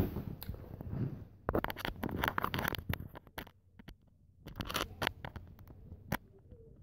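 Rustling, scraping and clicking of things being handled close to the phone's microphone, in two spells with a short quiet gap in the middle.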